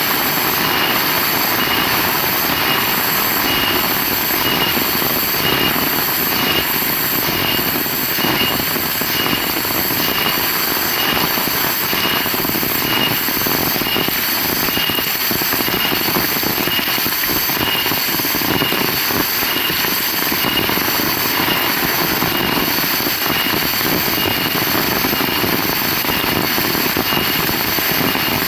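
Heavy rain falling, a loud, steady, dense hiss, with a faint high note repeating evenly about three times every two seconds.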